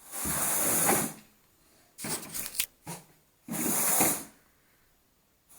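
Carpet rake dragged through thick carpet pile in repeated strokes: a series of scratchy swishes, each under a second, with a few sharp clicks around two seconds in.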